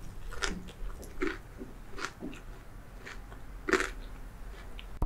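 Close-miked crunching of crispy fried food being bitten and chewed: about six sharp crunches, roughly one every half second to second, the loudest about three-quarters of the way through.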